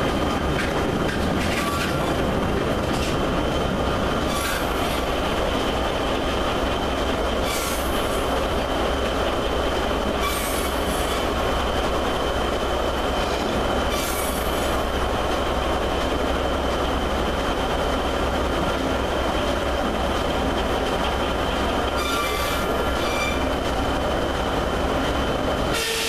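Sawmill running: the log carriage travels on its track while the head saw runs with a steady whine, and a few short high squeals break through, about four times.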